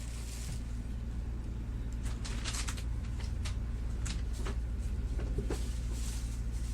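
Light clicks, knocks and rustling as things are handled and moved about, over a steady low hum.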